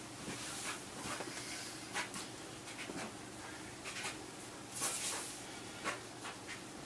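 Handling noise from a fiberglass takedown recurve bow: scattered light knocks and clicks with soft rustling, and a brief scraping rustle about five seconds in.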